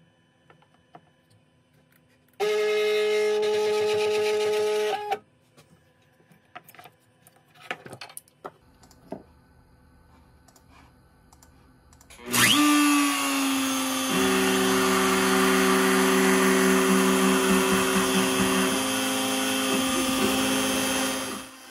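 X-Carve CNC router: its stepper motors give a steady whine for about two and a half seconds as the Z axis probes down onto the touch plate, then a few small clicks. About twelve seconds in the router spindle starts and runs loud and steady as the bit cuts into the poplar board.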